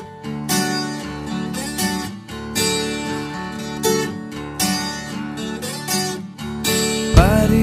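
Background music: a strummed acoustic guitar in an instrumental passage of a song with no singing, with a strum about once a second. A fuller, louder low accompaniment comes in near the end.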